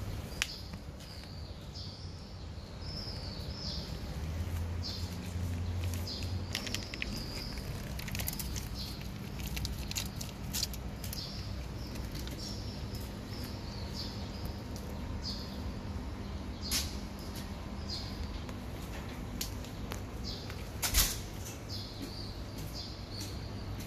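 Cats eating from a pile of food, with scattered sharp clicks and crunches as they chew, the loudest a little before the end. Small birds chirp over and over in the background, over a steady low hum.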